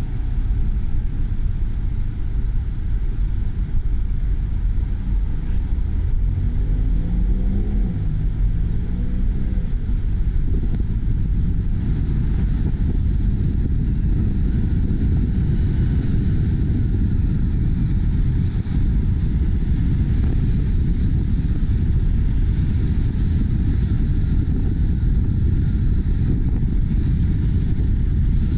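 A car driving, with wind rushing over the microphone and a steady low rumble of engine and road noise; about six to nine seconds in, the engine revs up in a few rising sweeps.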